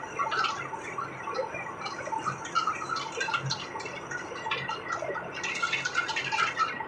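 Fishing net being paid out over a boat's gunwale: a steady stream of irregular small clicks and ticks as the mesh and its rigging run over the side, over a low steady hum.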